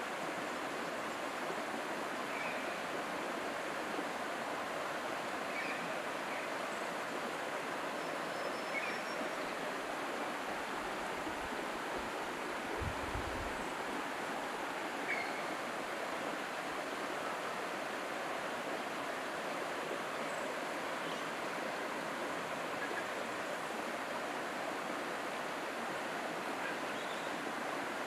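Steady rushing of running water from a stream in the valley below, with a few faint short high chirps scattered through it.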